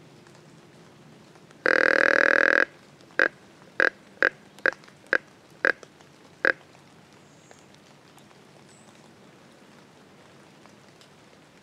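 Hunter's hand-blown deer call, sounded to draw a buck in: one long call of about a second, then seven short calls about half a second apart.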